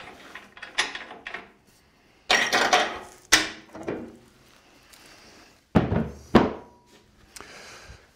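Metal clunks and knocks from a bowl coring machine as its coring knife is loosened and taken off: a few sharp knocks in the first half, then two heavy thumps about six seconds in.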